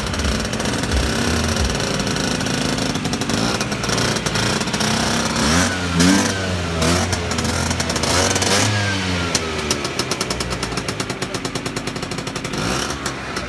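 Small engine of a customised Piaggio Ape three-wheeler, revved up and down several times near the middle, then settling into a steady idle with an even, pulsing beat.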